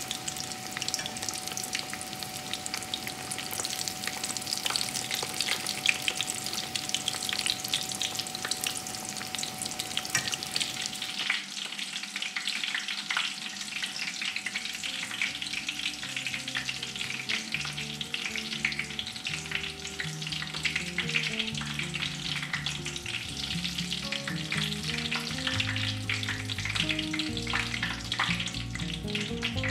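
Breaded pork-and-cheese cutlets deep-frying in hot oil, a dense, steady crackle and sizzle of bubbling oil. About halfway through, soft background music with low notes comes in under the frying.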